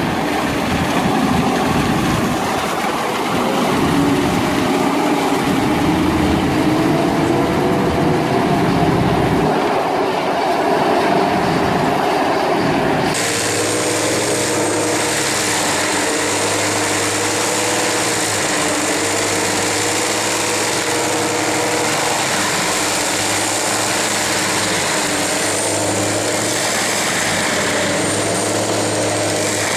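Tracked forestry mulchers running under load: diesel engine and spinning cutter drum grinding through brush, the pitch wavering as the drum bites. About halfway through the sound cuts abruptly to a steadier, hissier running of a second mulcher shredding saplings into wood chips.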